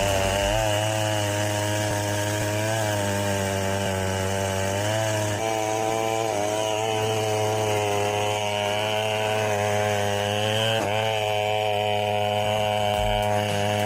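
Chainsaw running at high speed, cutting through a tree trunk, its engine note dipping briefly a few times as the chain takes the load.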